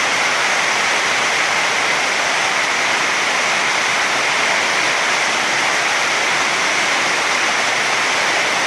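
Torrential downpour: heavy rain pouring down in a loud, steady hiss.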